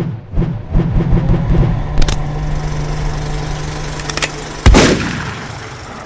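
Logo sting sound effects: a run of low thumps that quicken, a sharp hit about two seconds in followed by a steady low hum, then a loud bang near the end that rings out and fades.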